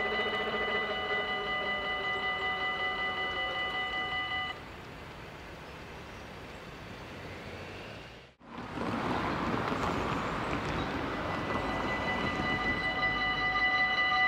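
Level-crossing warning bell ringing in quick, even strokes while the barriers rise, stopping about four seconds in. Later a rushing noise comes up, and the warning bell starts ringing again near the end as the red lights come back on.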